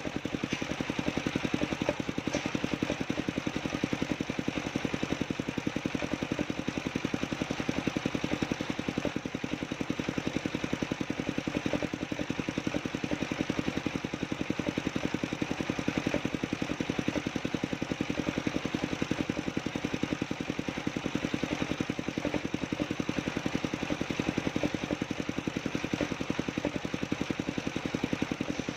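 Engine of a homemade sawmill running steadily, with a rapid, even beat that holds without a break.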